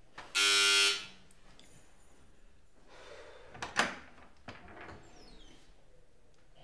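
Electric doorbell buzzing once for about half a second, then a door latch clicking a few times as the front door is unlocked and opened.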